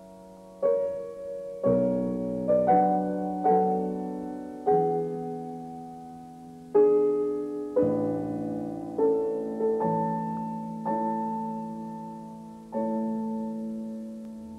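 Piano playing a slow classical piece. Notes and chords are struck roughly once a second, unevenly spaced, and each is left to ring and fade.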